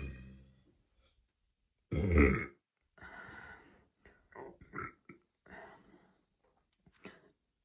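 A young woman burping on command: a deep burp fades out at the start, then a single loud, deep burp comes about two seconds in, followed by a few short, softer sounds.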